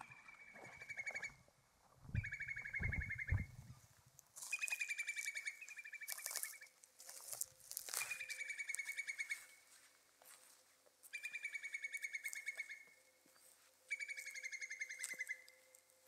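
A songbird singing a short, fast trill that falls slightly in pitch, about six times, each song lasting one to two seconds with a pause between. A few low thuds sound about two to four seconds in.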